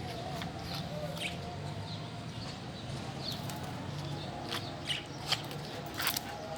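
Lovebirds chirping in short, scattered high calls, a few sharper ones near the end, over a steady low hum.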